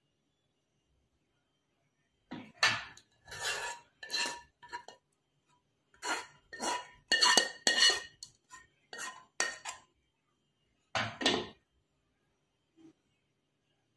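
A steel spoon scraping and clinking against a nonstick pan as thick milk custard is scooped out, in several short runs of strokes with pauses between.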